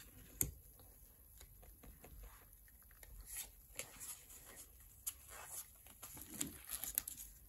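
Pokémon trading cards being handled and shuffled in the hands: faint slides and flicks of card stock, with one sharp tap about half a second in.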